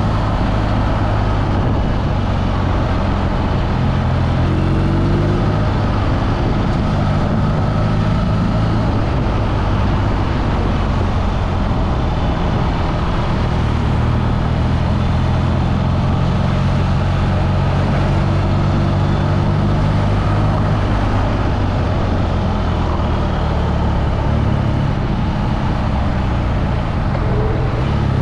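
BMW motorcycle engine running under way in city traffic, a low steady hum whose pitch shifts a few times as the throttle and gears change, over a constant rush of wind and road noise.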